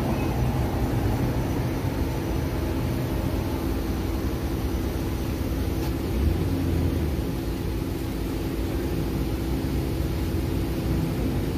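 Steady low rumble of vehicle and street traffic with a steady hum running under it, swelling briefly about six seconds in.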